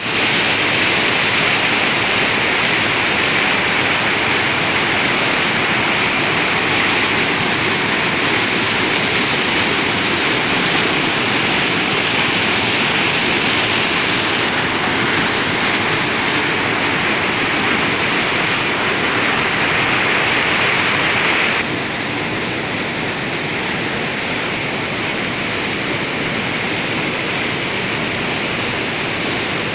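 Waterfall plunging through a narrow rocky gorge: a loud, steady rush of falling white water. It drops a little in level about two-thirds of the way through.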